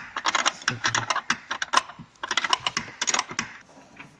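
Ratchet wrench clicking rapidly in two runs, with a short break about two seconds in, as a shock absorber mounting nut is unscrewed.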